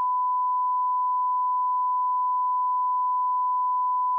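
A single steady electronic beep tone at one unchanging pitch, clean and unbroken, like a test tone.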